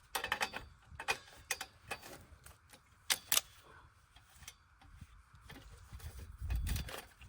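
Sharp metallic clicks and ticks from a makeshift tool working a bolt on an Alaskan chainsaw mill, with two louder clicks about three seconds in. A dull handling thump comes near the end.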